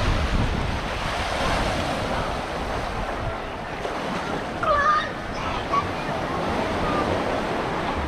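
Surf washing onto a sandy beach in a steady rushing hiss, with wind buffeting the microphone. A short high-pitched call cuts through about five seconds in.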